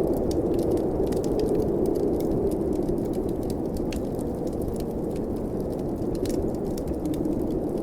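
Steady blizzard wind noise with frequent small crackles and pops from a wood fire in a fireplace.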